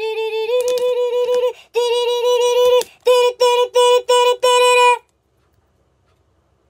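A synthetic, voice-like sung tone, held on one pitch and then broken into a run of short quick notes, cutting off abruptly to silence about five seconds in.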